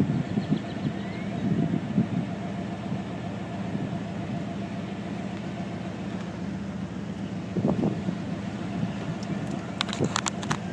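Steady low hum of a vehicle engine idling, with a few short clicks near the end.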